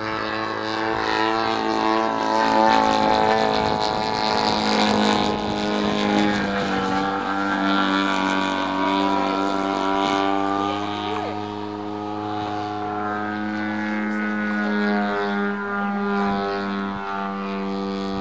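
Desert Aircraft 100 cc twin-cylinder two-stroke petrol engine of a large radio-controlled Yak 54 model airplane running in flight. It gives a steady buzzing propeller note that swells a couple of seconds in and eases off toward the middle as the plane passes.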